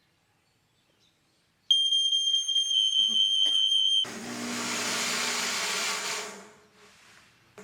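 A smoke alarm sounds a loud, steady high-pitched tone for about two seconds and cuts off abruptly. At once a loud hiss takes over for about two and a half seconds and then fades: a fog machine blasting out fog.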